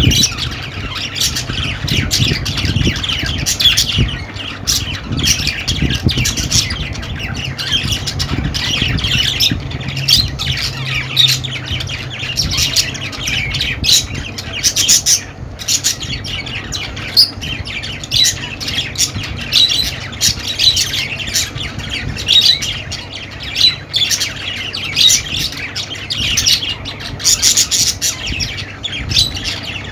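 Budgerigars chattering continuously: a dense run of quick chirps, warbles and sharp squawks with no pause.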